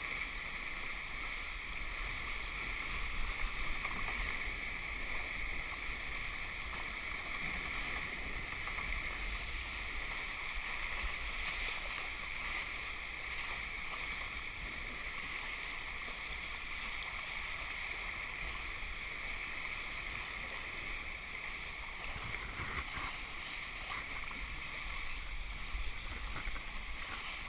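Steady rush of water along the hull of a 29er skiff sailing at speed, mixed with wind on the camera microphone.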